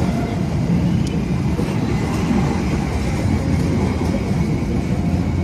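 Executive-class passenger train coaches rolling past close by: a steady rumble of wheels on the rails.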